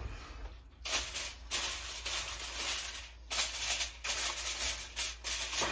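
Aluminum foil crinkling as it is pressed and folded down over a baking dish, in a run of rustling bursts with a few short breaks.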